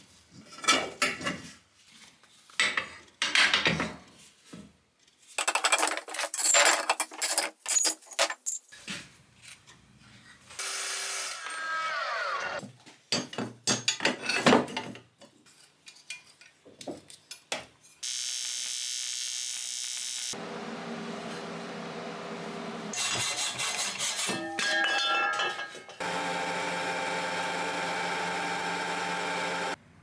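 Workshop tool sounds cut one after another: a run of metallic clinks and knocks, then several stretches of a power tool running steadily, each starting and stopping abruptly.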